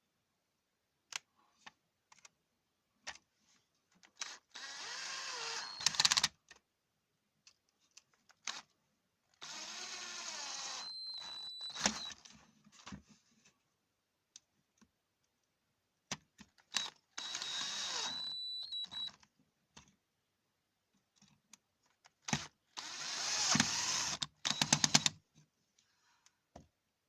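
A small electric motor tool running in four short bursts of about two seconds each, its pitch wavering under load, with scattered clicks and taps between the bursts.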